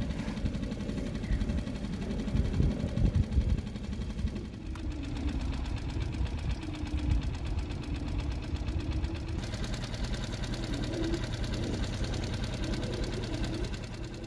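Boat motor idling with a steady, even pulsing. Sea lions growl in the background.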